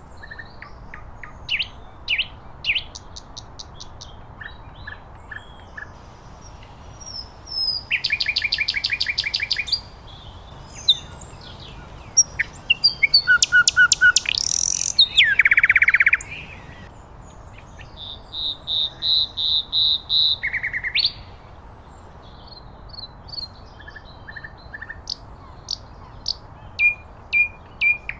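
Common nightingale singing: separate phrases of fast repeated notes and trills with short pauses between them. The loudest phrases come in the middle, one with a rising whistle leading into a rapid trill.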